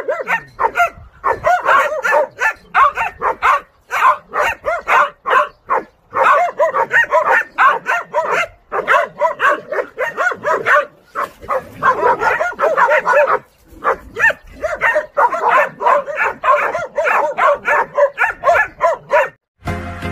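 Three-month-old Dansung-gae hunting-dog puppy barking at a wild boar: high, yapping barks in fast runs, broken by short pauses, with growling.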